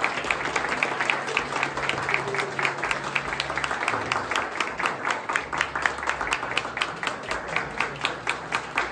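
A room of people applauding, with fast, even claps about five a second.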